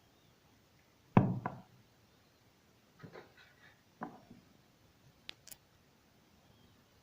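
A series of knocks and clicks from objects being handled on a hard surface: a loud double knock about a second in, softer clattering and another knock a couple of seconds later, then two short sharp clicks.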